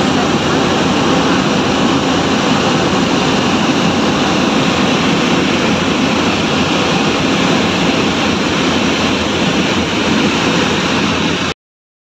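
Steady engine and airflow noise heard from inside a small fixed-wing aircraft in flight. It cuts off suddenly near the end.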